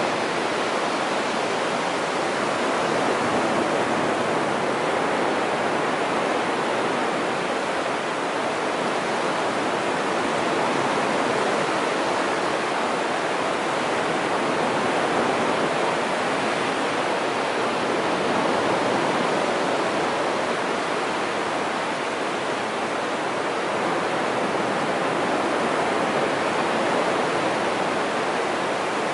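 Sea of Japan surf breaking and washing up a flat sandy beach: a steady rush that swells and eases gently every few seconds.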